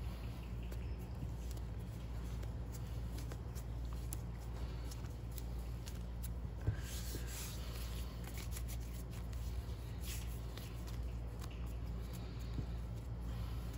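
Hands kneading and squeezing a lump of brown modelling paste stiffened with CMC, giving soft sticky rustling with scattered light clicks and one sharper click about seven seconds in. A steady low hum runs underneath.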